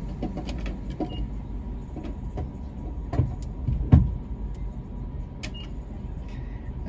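Inside a car with the engine idling: a steady low rumble with scattered clicks and knocks, and two louder thumps about three and four seconds in.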